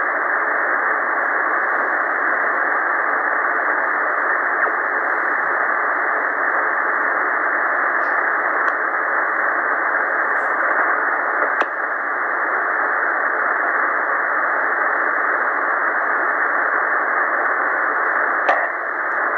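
Steady shortwave band noise hissing from a Tecsun PL-990x receiver in lower-sideband mode on 7195.5 kHz, cut off above and below like a narrow voice channel. A few faint clicks break through now and then. This is the empty channel between transmissions while the calling ham station stands by.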